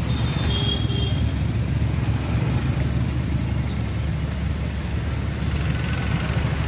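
Steady low rumble of road traffic and vehicle engines, with no distinct events standing out.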